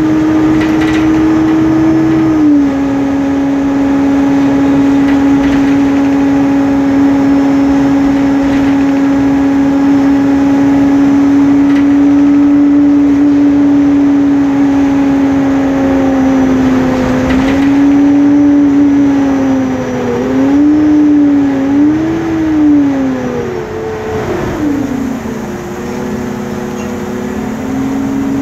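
Cooling fan of a MAN Lion's City CNG articulated bus, heard from inside the passenger cabin: a loud, steady whine over the running noise of the bus. The pitch steps down slightly a couple of seconds in, wavers up and down later on, then sinks and climbs back near the end.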